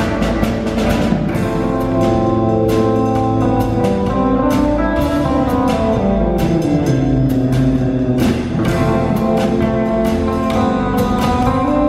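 Live band playing: drums hitting over sustained pitched instruments, with a long falling pitch slide through the middle.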